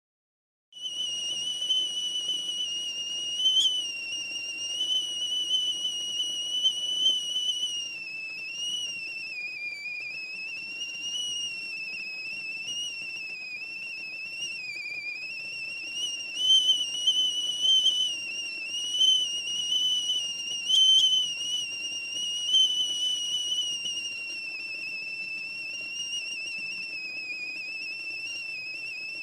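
Whistling kettle at the boil: one shrill, steady whistle that starts suddenly under a second in and holds on, its pitch wavering slightly, over a low rush of steam.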